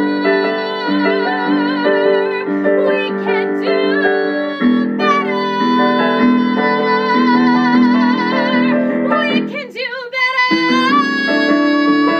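A woman singing a musical-theatre song, holding long notes with a wide vibrato over piano accompaniment. About ten seconds in the sound briefly drops away, then she takes up a final long held note.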